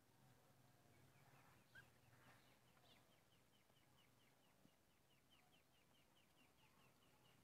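Muscovy ducklings peeping: a faint, rapid series of short high peeps, about five a second, with one louder chirp near the start.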